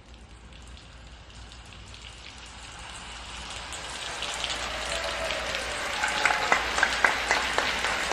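Applause from many people, faint at first and growing steadily louder, with individual sharp claps standing out more and more toward the end.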